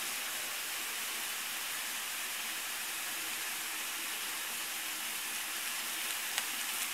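Chopped tomatoes, peppers, onion and potatoes sizzling in oil in a frying pan, a steady even hiss, with a faint tick near the end.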